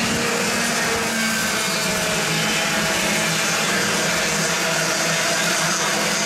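A pack of Cadetti-class racing karts with small two-stroke engines running together at high revs: a steady, buzzing blend with several engine tones overlapping and shifting in pitch.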